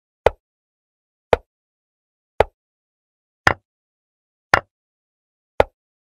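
Chess app move sound effects: a short wooden-piece click as each move is played, six times at an even pace of about one a second. The two clicks about halfway through are longer and sharper, fitting capture sounds.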